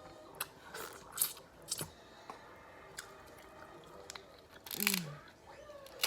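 Crab leg shells being cracked and broken open for the meat: a string of sharp cracks and clicks, a few a second at most, with a louder crunching burst about five seconds in.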